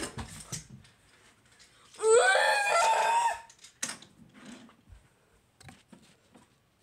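A single loud, shrill cry begins about two seconds in, rises in pitch and holds for about a second and a half, amid faint scattered clicks.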